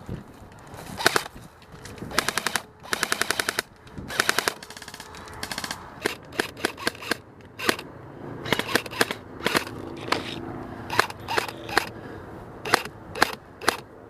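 Airsoft electric rifles firing: a few rapid full-auto bursts in the first half, then single semi-auto shots about every half second. This is the sound of players being shot out of the game.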